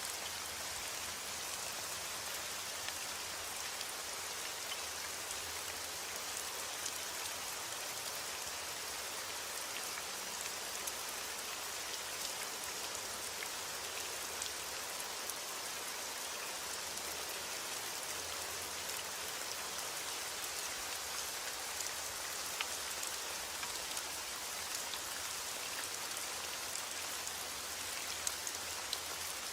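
Steady heavy rain falling, with a constant hiss and scattered individual drops hitting a surface.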